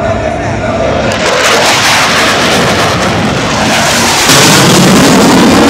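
F-16 Fighting Falcon jet engine noise as the fighter flies past: a loud rushing noise that builds from about a second in and jumps louder and deeper about four seconds in.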